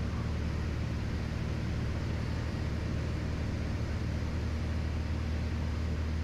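Piper PA-28RT Turbo Arrow's turbocharged six-cylinder engine and propeller running steadily in flight, heard inside the cabin. A steady low hum with an even hiss above it.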